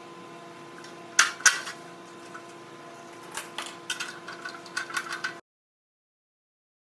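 Metal parts clinking and knocking, a few sharp strikes about a second in and a quicker run of them from about three seconds in, over a steady hum; the sound cuts off abruptly about five seconds in.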